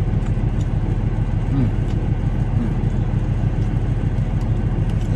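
Semi-truck's diesel engine idling: a steady low hum heard inside the cab.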